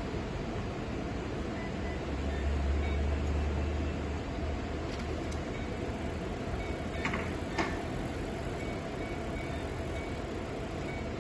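Steady whir of the cooling fans in an Olympus CLV-180 light source and CV-180 video processor running, with a low hum that comes and goes in the first few seconds. Two short clicks about half a second apart come about seven seconds in.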